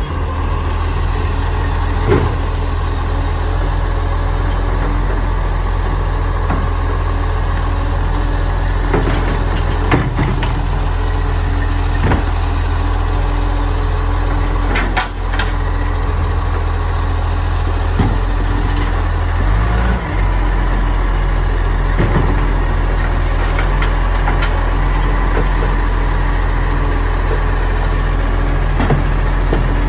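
Dennis side-loader garbage truck's diesel engine idling steadily while its automated side arm lifts and empties wheelie bins into the hopper, with sharp knocks and clunks of the arm and bins every few seconds.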